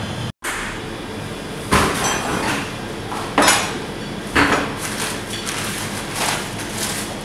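Kitchen clatter: three sharp knocks and clinks of dishes and pans, with smaller clinks between them, over a steady background hum.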